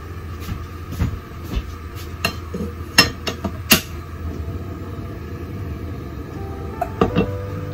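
Frying pan clanking and scraping against a gas stove's metal grate as it is lifted and tilted to swirl heating sesame oil. There are a few sharp knocks, the loudest about three to four seconds in and two more near the end, over a steady low hum.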